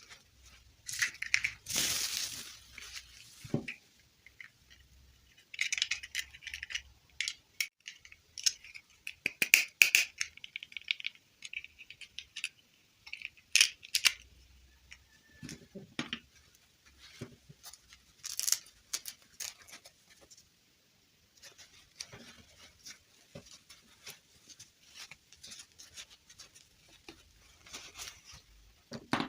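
Small objects being handled by hand: irregular clicks, taps and short rustles, with a longer scraping or rustling stretch about two seconds in.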